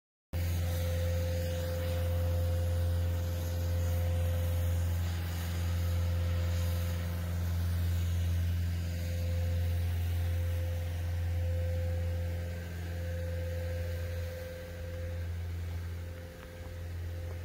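Caterpillar 246D skid steer's diesel engine running at a steady speed, a deep even hum that grows quieter near the end.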